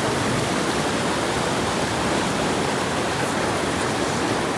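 Steady rush of floodwater pouring through a sluice gate.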